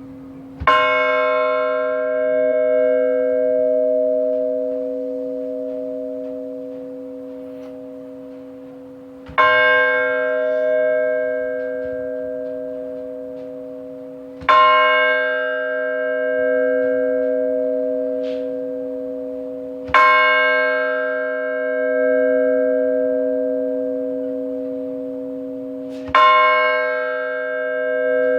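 A large church bell struck five times, several seconds apart. Each stroke rings on with a low hum and dies away slowly into the next.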